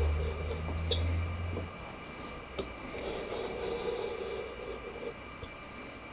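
Utility knife blade drawn slowly along a heavy steel ruler through mat board: a scratchy scraping cut with a couple of small clicks. A low hum stops about two seconds in.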